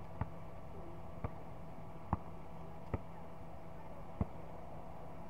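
Basketball bouncing on a hard court, five sharp knocks about a second apart over a steady low hum.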